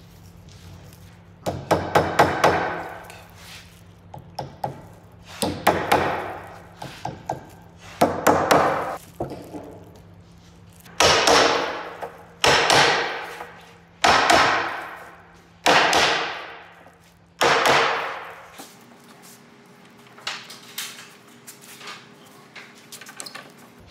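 Hammer knocking on freshly glued, biscuit-joined oak boards to drive the glue-up together. Clusters of quick knocks come first, then five single heavier blows about a second and a half apart, each ringing out briefly, and the sound ends in a few light taps.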